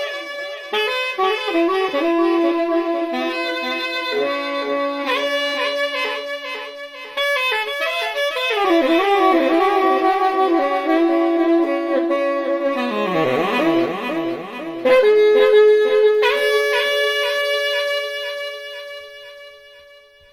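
Instrumental background music led by a saxophone-like melody of held, wavering notes, fading out near the end.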